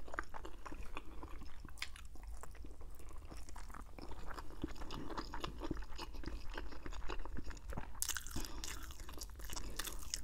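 Close-miked chewing of soft roasted chicken and fettuccine Alfredo: wet mouth sounds with many small clicks and crackles, and a cluster of louder ones about eight seconds in.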